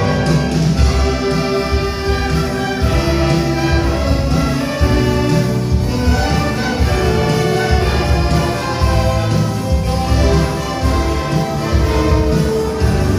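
Church orchestra playing a piece, with held notes over a strong low bass.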